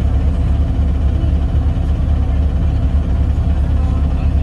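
Yutong ZK6126HG city bus engine idling, a steady low drone heard from inside the passenger cabin.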